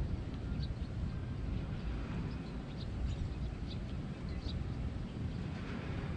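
Outdoor ambience: a steady low rumble, with scattered short, high chirps of small birds.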